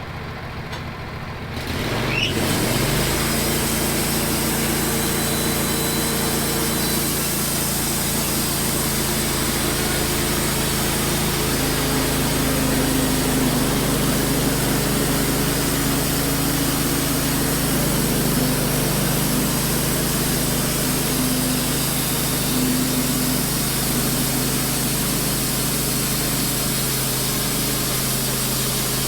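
Wood-Mizer LT15 band sawmill starting a cut: its engine is throttled up with a short rising sweep about two seconds in, then runs steadily under load as the band blade saws through the log.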